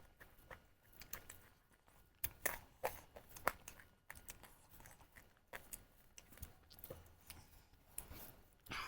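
Someone chewing and biting duck curry: irregular short mouth clicks and smacks, a few louder ones between about two and three and a half seconds in.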